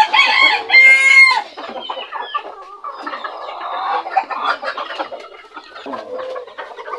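Frizzle and cochin bantam chickens clucking and calling. A loud rooster crow comes in the first second and a half, followed by a busy flock chatter of short clucks.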